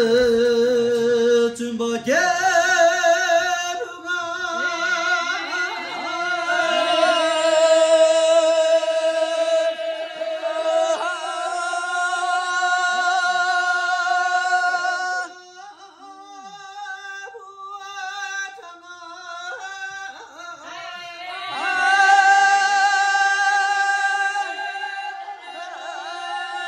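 A man singing a Tibetan song solo, holding long high notes with vibrato. The voice falls quieter about halfway through, then swells loud again near the end.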